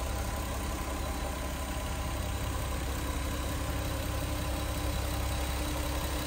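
Toyota Supra's 2JZ-GTE twin-turbo 3.0-litre straight-six idling steadily, heard close up with the bonnet open.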